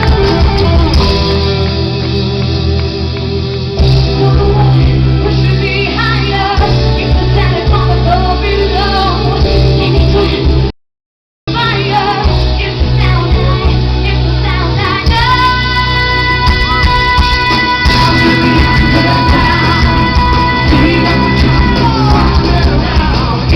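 Live pop music with female singing from a stage show, heard through a small recorder's microphone. The sound cuts out completely for under a second about eleven seconds in. A long steady note is held for several seconds in the second half.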